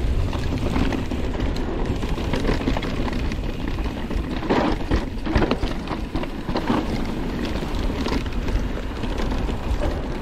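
Mountain bike rolling fast down a dirt singletrack: steady wind rumble on the bike-mounted microphone, the tyres crackling over the dirt, and a few knocks and rattles from the bike about halfway through as it goes over rough ground.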